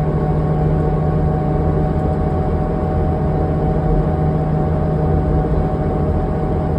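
Inside a 2005 New Flyer D40LF diesel transit bus under way: steady engine and drivetrain drone with a low rumble and a constant whining tone that holds its pitch.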